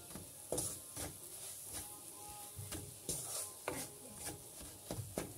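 Wooden spoon stirring and scraping semolina through butter in a nonstick pan, in faint, irregular strokes, as the semolina is slowly roasted for halwa.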